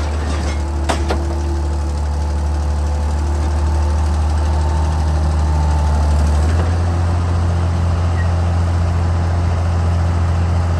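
Excavator's diesel engine running steadily with a low drone that shifts in pitch about six and a half seconds in, with a sharp knock about a second in.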